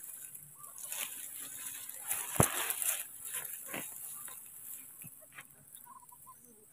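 A baby macaque moving through dense grass and weeds, the stems and leaves rustling and crackling around it, with one sharp snap about two and a half seconds in. A few faint short squeaks come near the end.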